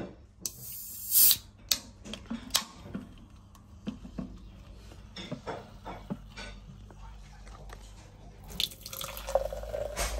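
An aluminium drink can's ring-pull snapping open with a short hiss about a second in, then a few small clicks. Near the end, the pink drink pouring from the can into a glass tumbler.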